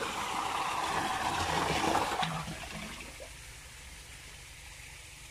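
Water gushing from a solar-powered pump's outlet into a concrete tank, a steady rush that turns much quieter about two and a half seconds in.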